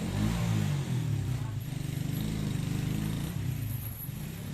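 An engine running, a low hum that wavers a little in pitch.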